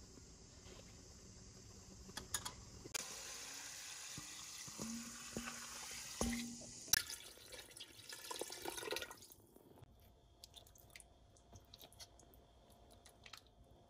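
Water poured from a jug onto dry rice vermicelli in a plastic tub to soak them, splashing for about six seconds and then stopping, with a few light clicks and taps around it.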